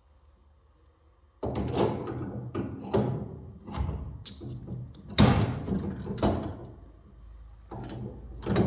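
Metal clunks and knocks as a steel shaper spindle is handled and fitted into the spindle housing of a Felder CF 741s combination machine. The knocks start about a second and a half in and come as a series of separate hits, with the loudest a little past halfway.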